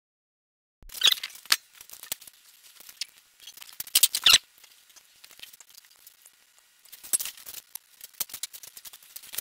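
Rusty condensate water dripping and spattering out of the drain of an upright air compressor's tank: an irregular patter of small splashes and clicks starting about a second in. The water built up because the tank was not drained regularly.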